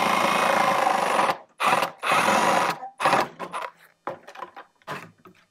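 Cordless drill boring into a PVC pipe, running in four bursts: a long one of over a second, a short one, another of nearly a second, and a brief one about three seconds in. Light handling clicks follow.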